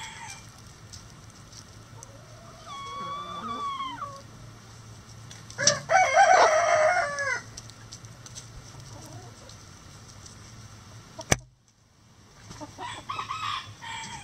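A rooster crowing loudly about six seconds in, after a fainter, shorter crow or call a few seconds earlier. Hens clucking and squawking near the end, with a single sharp click shortly before.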